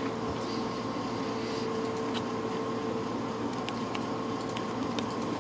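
Steady room hum with a faint constant tone, and a few faint ticks from trading cards being handled and sorted in a stack.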